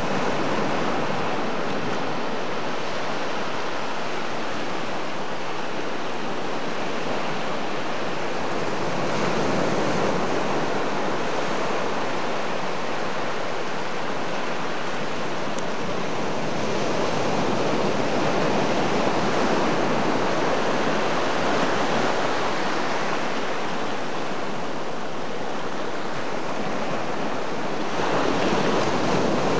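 Ocean surf breaking and washing up a sandy beach: a steady rush of water that swells a few times as bigger waves come in.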